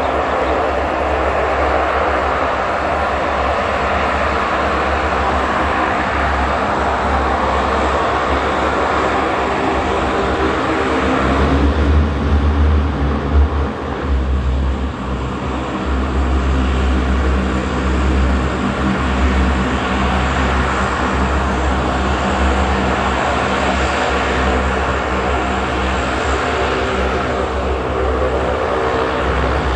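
Lockheed C-130 Hercules' four turboprop engines running as the aircraft taxis: a steady propeller drone over a strong low hum, swelling briefly about halfway through.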